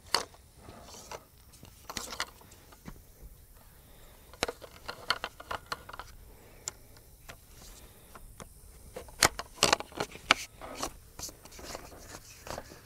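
Clicks, knocks and scrapes of metal pole-saw shaft sections being slid together and the joint clamp closed, with a sharp click right at the start and a cluster of loud clicks about nine to ten seconds in.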